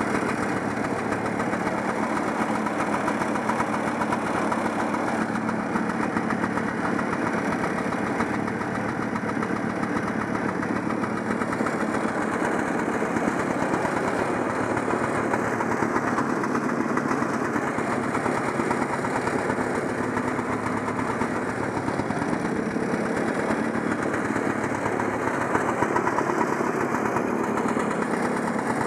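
Vintage two-stroke snowmobile engine running steadily at idle, with no revving.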